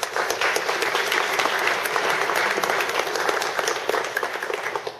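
Audience applauding: many hands clapping together, starting suddenly, holding steady, then dying away near the end.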